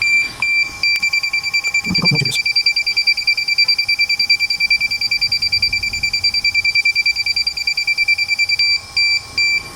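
Drone warning beeper sounding a high electronic beep over and over, rapidly at about eight beeps a second, then slowing to a slower beeping near the end.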